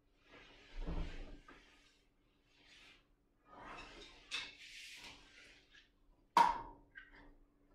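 Scattered rustling and handling noises with one sharp knock a little after six seconds in, over a faint steady hum.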